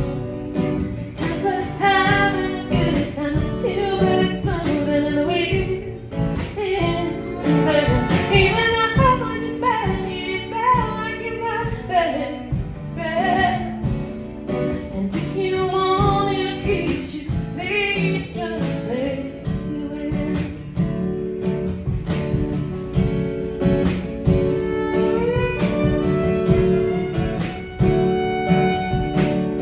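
Live acoustic band: a woman singing over her strummed acoustic guitar, with fiddle and drum kit. The voice drops out about twenty seconds in, leaving the instruments playing on.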